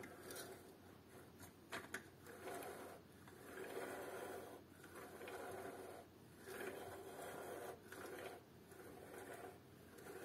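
Faint scraping of a grey PLA 3D-printed fidget star as it is pushed around, its nested star-shaped layers sliding against each other and over a wooden tabletop. It comes in repeated strokes of about a second each, with a couple of sharp plastic clicks about two seconds in.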